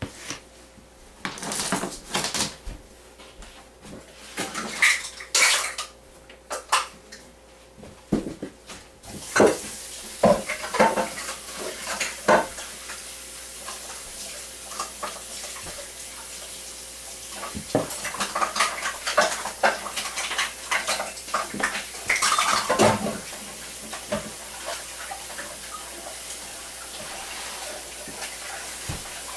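Irregular knocks and clinks of kitchen utensils and dishes, with a wooden rolling pin bumping on a floured wooden table as pie-crust dough is rolled out. About nine seconds in, a steady rush of running water from a tap starts and keeps on under the clatter.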